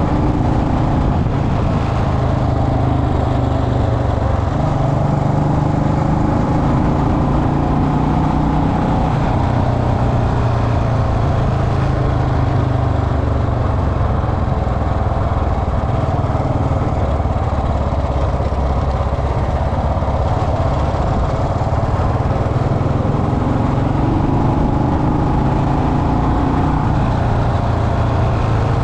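Royal Enfield Bullet Electra's single-cylinder engine running steadily, its pitch shifting up and down several times as the revs change.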